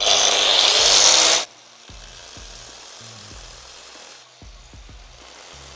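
Angle grinder with a diamond blade, freshly dressed on a sharpening stone, running loudly for about a second and a half and then cutting off abruptly. After that there is only a faint steady hiss.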